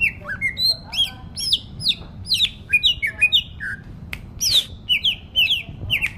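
A songbird singing a fast run of sharp, whistled chirps, most of them sliding downward in pitch, several notes a second.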